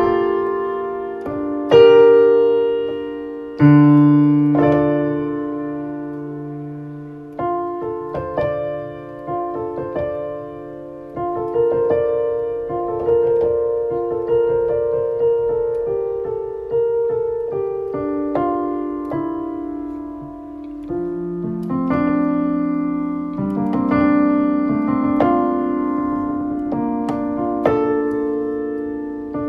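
Solo piano improvising slowly: chords and single notes struck and left to ring out, with two heavy chords in the first few seconds, then quieter, busier runs of notes over held low chords.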